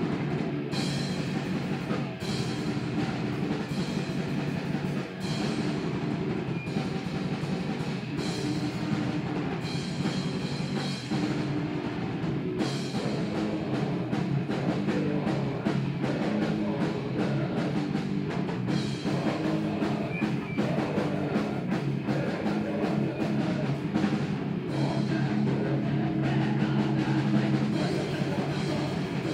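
Live rock band playing, with a drum kit hitting steadily over a dense wall of amplified instruments.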